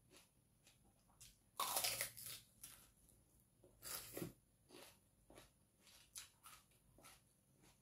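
Close-up mouth sounds of someone eating a raw shallot: two loud crunchy bites about two seconds apart, then quieter chewing clicks.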